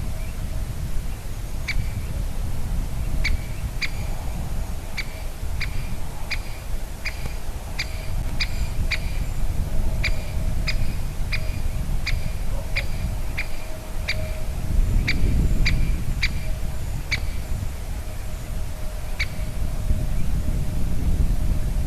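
Great spotted woodpecker giving sharp single 'kik' calls, repeated irregularly about once a second, stopping a little before the end.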